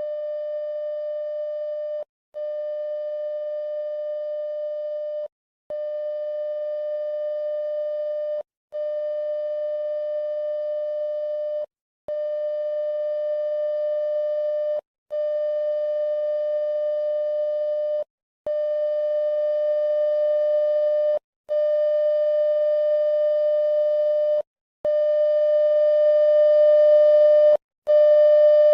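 Electronic emergency alert alarm tone: one steady, buzzy pitch held for about three seconds at a time with short breaks between, growing louder as it repeats.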